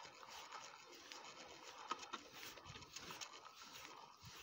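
Faint ticking and rubbing of a fishing reel being cranked to bring in a hooked fish.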